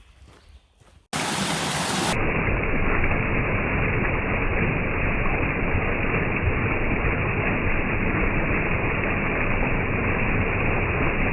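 Steady rushing water of a stream tumbling over rocks, loud and even. It starts abruptly about a second in and cuts off just before the end.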